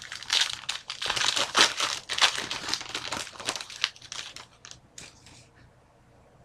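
Plastic trading-card pack wrapper crinkling loudly as it is torn open and handled, dying away after about four seconds.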